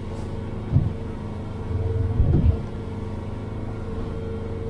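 Boat engine running steadily under way, a low hum with a steady higher tone over it. Dull low thumps come about a second in and again around two seconds in.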